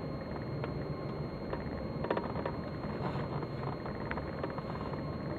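Ford EL Fairmont Ghia engine idling roughly and unevenly, with scattered light ticks. This is a dual-fuel car that idles rough on both LPG and petrol and often stalls; the owner suspects a faulty engine computer or distributor.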